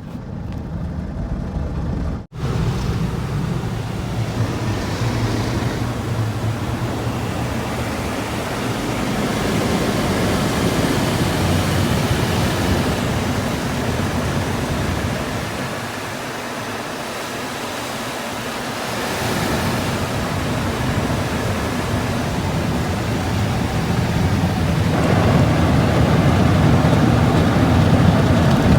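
Automatic car wash spraying water over the car, heard from inside the cabin as a steady rushing noise. It drops out for an instant about two seconds in and grows louder near the end.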